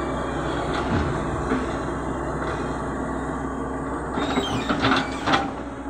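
Caterpillar excavator's diesel engine running steadily as the loaded boom swings over a dump truck. From about four seconds in, a rattling clatter as the bucket tips soil and stones into the truck's steel bed.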